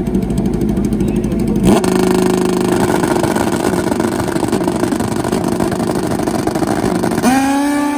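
Two drag-racing motorcycles running at the starting line. Their engines idle with a low rumble, step up to a steady higher revving note about two seconds in, then climb in pitch near the end as the bikes launch.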